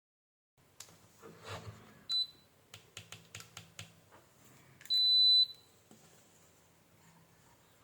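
An electronic beeper sounds twice at one high pitch: a short chirp about two seconds in, then a louder half-second beep about five seconds in. Light clicks and handling knocks from bench work come in between.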